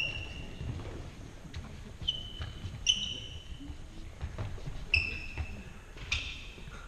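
Shoe soles squeaking on a sports hall's wooden floor as two sparring fighters step and pivot: about five short, high squeaks over soft footfalls.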